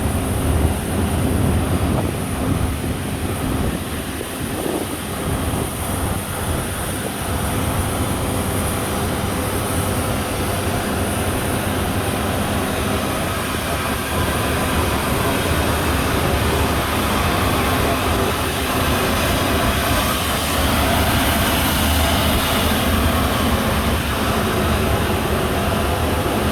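Steady cabin noise inside a military aircraft in flight: a dense low rumble and rush with a faint steady hum running through it.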